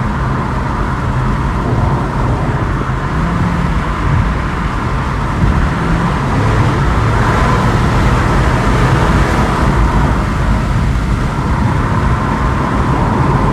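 A 2015 Chevrolet Camaro's engine pulling hard on a full-power road test, with steady road and tyre noise, heard from inside the car. The engine runs strongly, the injector 6 misfire repaired.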